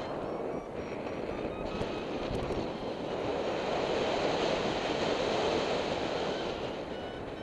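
Wind rushing over the microphone of a paraglider in flight, a steady roar that swells a little louder around the middle.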